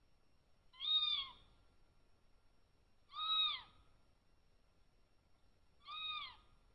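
Cougar calls: three short whistled chirps, each rising then falling in pitch, the last one softer.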